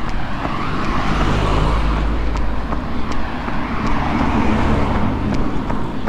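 A motor vehicle driving past, its engine and tyre noise with a deep rumble swelling and easing, over the regular footfalls of a runner.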